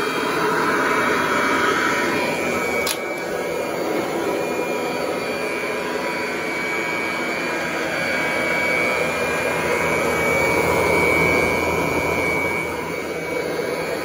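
Kirby 514 upright vacuum cleaner running steadily as it is pushed over carpet, a steady motor noise with a high whine on top. A brief click about three seconds in; near the end the motor begins to wind down.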